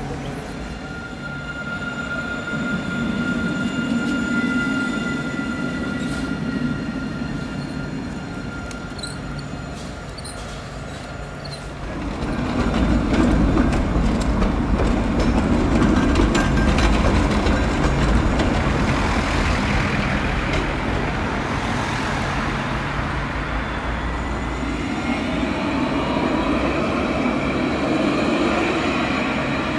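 Alstom Citadis electric trams running on street track: a low rumble of wheels on the rails with a steady electric motor whine. About twelve seconds in the rumble steps up louder as a tram passes close, and near the end the motor whine rises as a tram pulls away.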